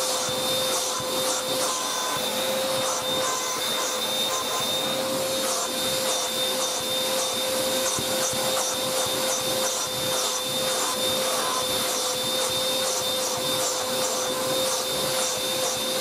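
Beaumark BM222 V600 TinyTurbo handheld vacuum cleaner running steadily with a high motor whine, its bare extension hose sucking at a carpet. Light scratchy ticks come through as the hose end rubs over the pile.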